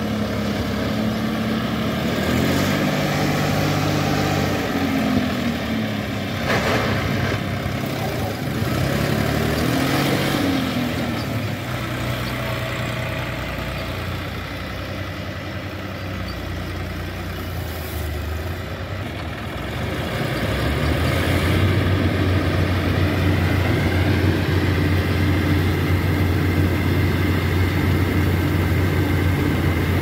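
Diesel engines of a combine harvester and a tractor running close by. The pitch rises and falls twice in the first half, and from about two-thirds of the way in it settles into a louder, steady drone.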